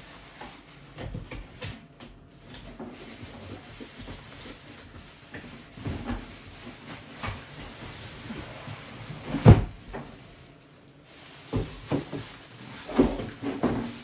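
Cardboard box and packing being handled during an unboxing: scraping and rustling of cardboard and packing inserts, broken by dull knocks and thumps. The loudest thump comes a little past the middle, and a quick run of knocks follows near the end.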